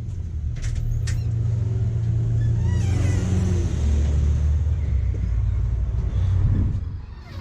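A low, steady motor-vehicle rumble that swells in the middle and fades near the end, with a couple of light clicks in the first second.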